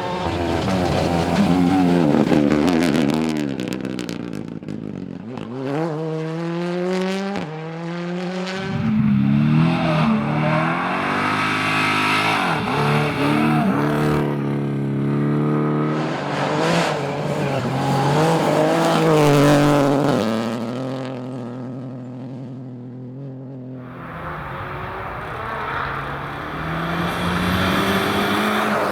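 Rally cars on a gravel stage, engines revving hard: the pitch climbs and drops back through repeated upshifts as they accelerate past, one car after another.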